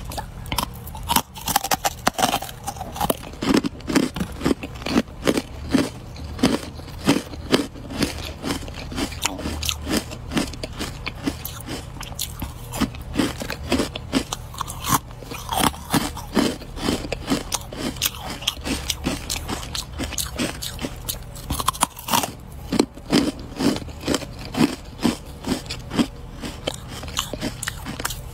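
Ice being bitten and chewed: a continuous run of sharp, crackling crunches.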